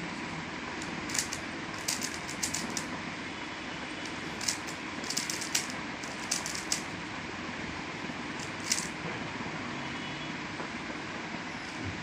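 Sharp clicks of a 3x3 Rubik's Cube's layers being twisted by hand, coming in irregular clusters of quick turns over a steady background hiss.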